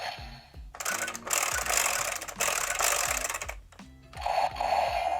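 Bandai DX Geardalinger toy blaster playing its electronic sound effects and music from its small speaker as a new gear is loaded. A long noisy blast about a second in is followed by a buzzy electronic tone near the end.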